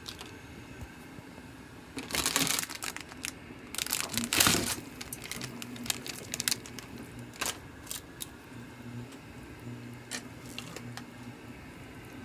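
Instant ramen soup-powder packet being handled and torn open, crinkling in two loud spells about two and four seconds in, with scattered light clicks.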